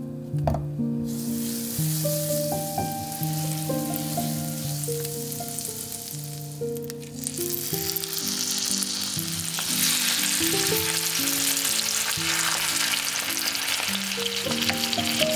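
Butter and oil sizzling in a frying pan, growing louder and denser after about eight seconds as raw marinated chicken thighs are laid in and start to fry. Soft background music plays throughout.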